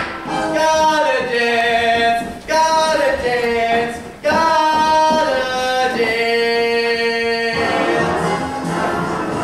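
A group of voices singing three long held phrases, the pitch stepping down at the end of each, with brief breaks between them. Near the end the singing gives way to rhythmic show music.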